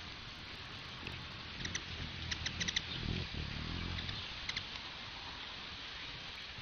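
Hummingbird chirping in short, quick chip notes: a few singles, a rapid cluster of about five some two and a half seconds in, and a couple more about four and a half seconds in. Steady rain hiss underneath.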